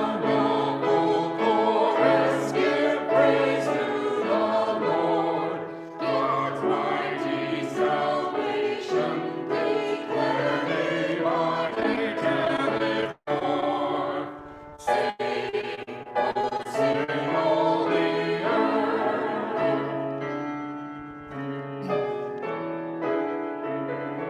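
Full church choir singing a sustained choral piece, with two brief dropouts in the recording about thirteen and fifteen seconds in. The voices grow softer near the end.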